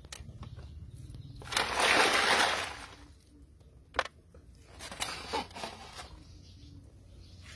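Whole wet catfish being handled on a stainless steel tray: a loud scraping, sliding noise lasting about a second, starting about a second and a half in, then a few light knocks.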